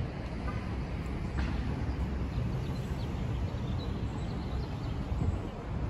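Outdoor background noise: a steady low rumble with no clear single source.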